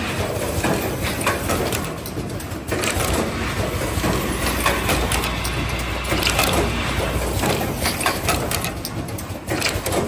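Automatic power-cord processing machine running, its pneumatic cylinders and grippers clacking and clicking in a quick, irregular series over a steady hum of machine noise.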